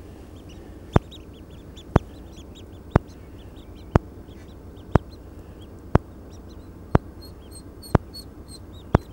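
Ducklings peeping: many short, high, rising-and-falling cheeps scattered throughout. A loud, sharp click repeats evenly about once a second over them.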